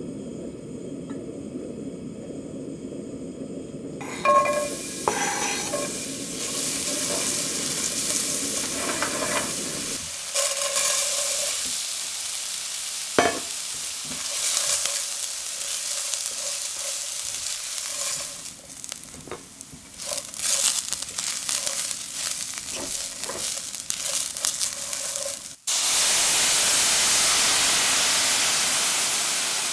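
Chopped onion and a barley and split-pea grain mix sizzling in oil in a stainless steel pan, stirred and scraped with a spatula, with one sharp knock partway through. About 26 seconds in, white wine goes into the hot pan and sets off a sudden, loud, steady hiss.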